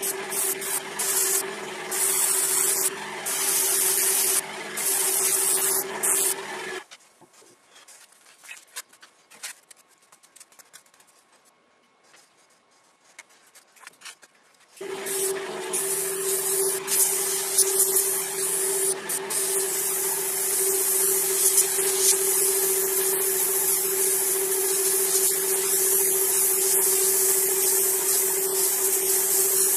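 Airbrush compressor running with a steady hum while the airbrush hisses in short bursts as the trigger is worked. About seven seconds in, everything drops to near silence for some eight seconds, then the compressor hum and a continuous airbrush hiss come back.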